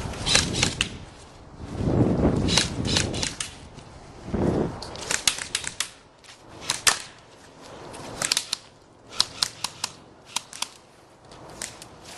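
Airsoft electric guns firing short bursts of BBs, a rapid run of sharp clicks several times over, with gaps between the bursts.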